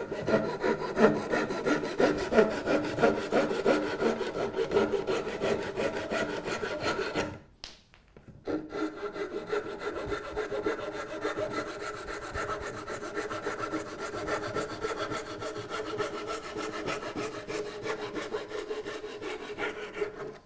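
Hand saw cutting through the end of an ash chair leg in quick, even back-and-forth strokes, in two bouts with a short break about seven seconds in.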